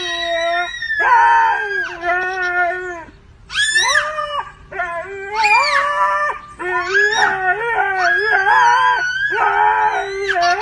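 A husky and a toddler howling back and forth: a series of long pitched calls that waver and slide up and down, with short breaks between them.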